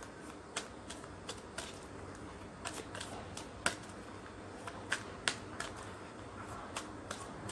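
Rider-Waite tarot deck being shuffled by hand, overhand: the cards slipping and tapping against each other in faint, irregular sharp clicks, a few a second.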